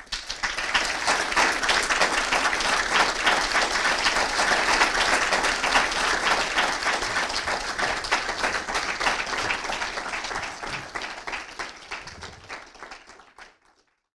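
Audience applauding, a dense steady clapping that thins out over the last few seconds and cuts off shortly before the end.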